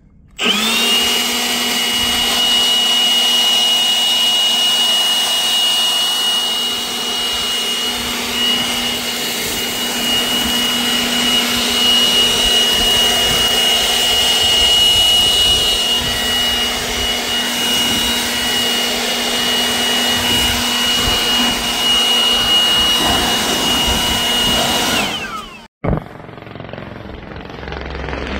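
Farm harvest machinery running steadily with a high-pitched whine and a lower hum over a broad rush of noise. It spins up at the start and winds down about 25 seconds in, and a quieter machine sound follows.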